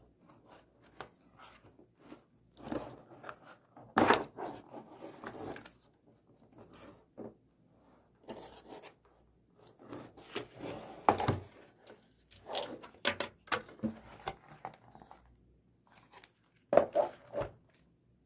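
Product packaging being opened and handled by hand: irregular scrapes, rustles and light knocks, with louder knocks about four seconds in, around eleven seconds and near the end.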